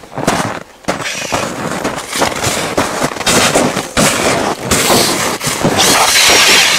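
Irregular crackling and knocks, then near the end a cordless drill driving an ice auger starts up and runs with a steady whine as it begins boring into the ice.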